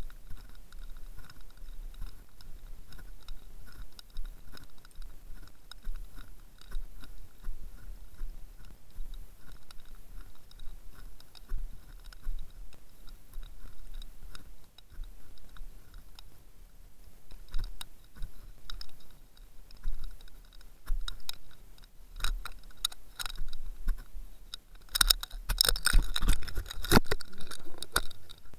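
Irregular crackling and clicking picked up by an underwater camera rig deep below the surface, over a faint steady hum. The clicks thicken in the last few seconds into a loud dense burst of crackling.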